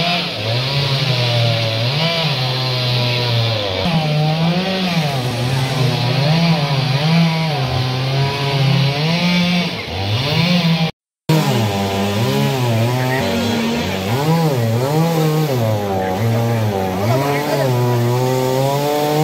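Two-stroke chainsaw cutting through the trunk of a fallen tree, its engine pitch rising and falling as the throttle and load change. The sound cuts out for a split second about midway.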